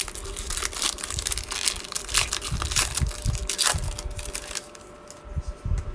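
Crinkling and tearing of a trading card pack's wrapper as it is ripped open and handled, an irregular run of crackles that grows fainter near the end.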